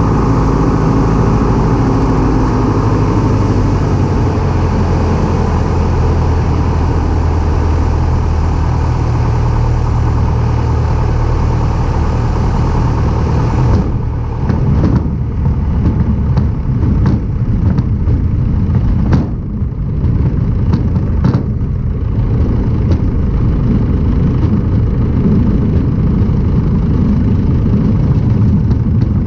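Light aircraft piston engine running steadily. About halfway through the sound changes abruptly to a rougher rumble with a run of irregular sharp knocks and clicks.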